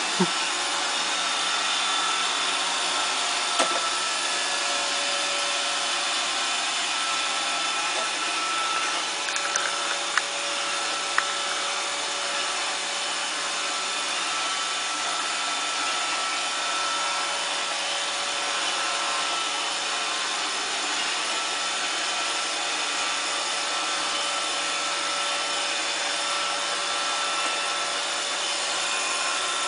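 iRobot Roomba robot vacuum running, its motor and brushes giving a steady whirring hum with a few held tones. A handful of short sharp clicks come in the first dozen seconds.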